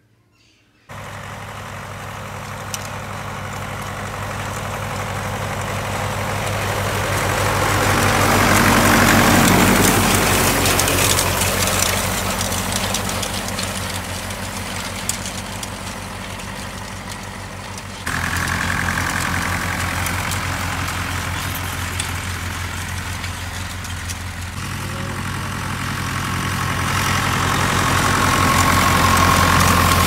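Vintage tractor engine running steadily while pulling a rotary tedder through mown hay. It gets louder as the tractor comes close, around nine seconds in and again near the end.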